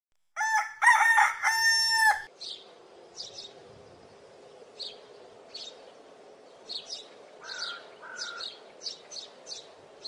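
A rooster crows once, loudly, about half a second in. Small birds then chirp faintly now and then over a low background hiss.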